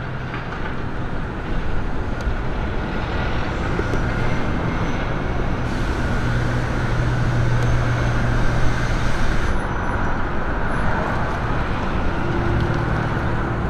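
Steady road noise of a car driving in traffic, with a low engine hum and tyre rumble and no sharp events.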